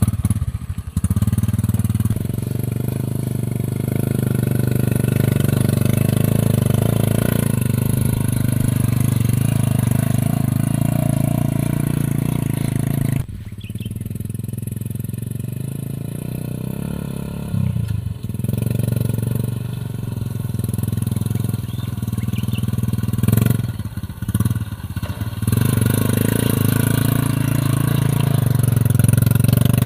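Single-cylinder Honda Supra motorcycle engine of a homemade three-wheeled cargo vehicle running steadily while pulling a heavy load of cut grass. The engine sound changes abruptly about thirteen seconds in and several times after.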